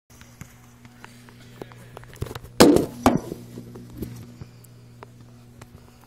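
Phone microphone handling noise as the phone is grabbed and swung: scattered small knocks and clicks, with two loud rubbing scrapes about two and a half and three seconds in, over a steady low hum.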